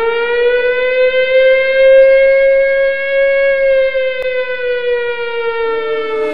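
One long wail that glides up in pitch, holds steady for several seconds, then slowly sinks, like a siren. There is a brief click about four seconds in.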